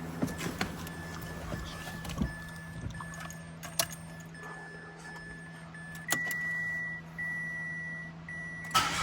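Repeating electronic warning beeps from the car, the last three long and louder, over a low hum and handling clicks. Near the end the starter motor begins cranking the engine, which is being jump-started from a dead battery.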